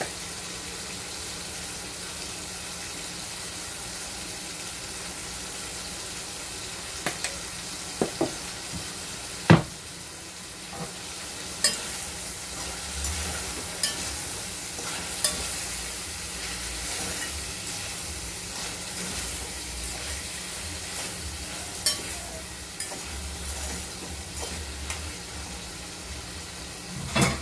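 Smoked red herring with onions, sweet peppers and tomatoes sizzling steadily as it sautés in a pot. The food is stirred, and there are a few sharp knocks against the pot; the loudest comes about ten seconds in.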